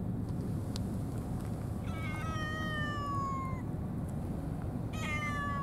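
A cat meowing twice in long, drawn-out calls: the first lasts over a second and a half and falls slightly in pitch, the second starts near the end. A steady low background noise runs underneath.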